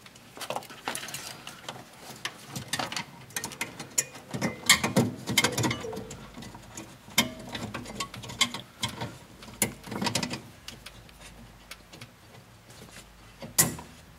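Handling noise from an HID bulb and its rubber dust shroud being fitted into the back of a headlight housing: scattered clicks, knocks and rubbing of plastic and rubber, busiest in the middle, with one sharp click near the end.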